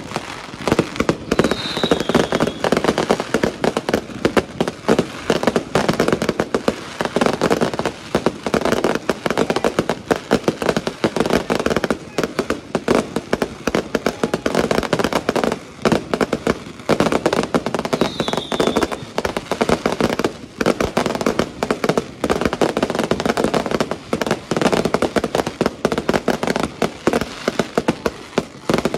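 Fireworks display: a dense, continuous barrage of rapid bangs and pops from aerial shells and cakes going off one after another. A short falling whistle cuts through about two seconds in, and again a little past the middle.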